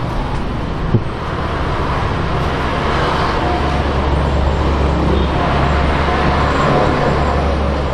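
Road traffic going by on the street: a steady low engine rumble with tyre noise that builds about a second in and holds.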